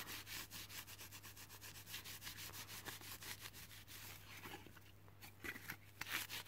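A wet tissue rubbed quickly back and forth over a thin, fire-blackened aluminium windscreen panel, a faint scrubbing of several strokes a second at the burnt-on film residue, with a few louder scrapes near the end.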